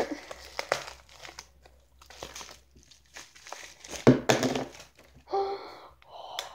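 Thin plastic bag crinkling as it is pulled open by hand, then a sharp thump about four seconds in as a plastic slime tub drops out onto a wooden table.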